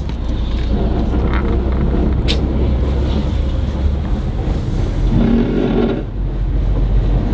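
Honda Civic Si driving, heard from inside the cabin: steady low road and engine rumble with a rough scraping from a tire rubbing against the wheel well, a sign that the new wheel and tire fitment still does not clear.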